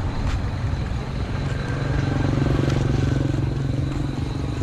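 Motor vehicle engine running close by on the road, its note swelling about two seconds in and easing off near the end.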